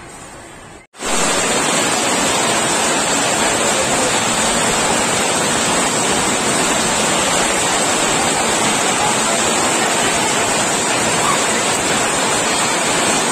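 Heavy rain downpour, a loud steady hiss that starts abruptly about a second in, heard from under a corrugated sheet-metal roof with water streaming off its edge.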